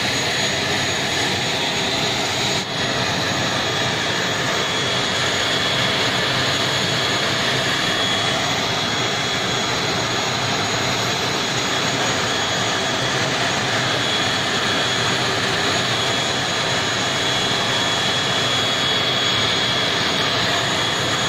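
Turboprop airliner engine running steadily on the apron: a loud, even rushing noise with a thin, high, steady whine.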